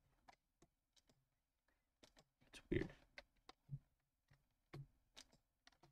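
Quiet, scattered computer keyboard key presses and mouse clicks, with one louder knock about halfway.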